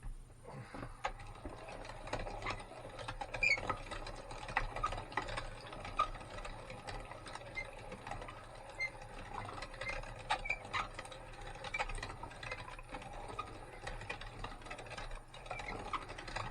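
Weston No. 32 meat grinder grinding tough, sinewy meat: dense crackling and squeaking with many sharp clicks as the meat is forced through the blade and plate. It stops near the end.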